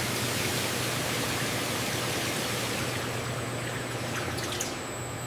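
Steady rushing noise, like running liquid or a factory's background roar, over a low steady hum; it drops a little near the end, when a faint thin high whine comes in.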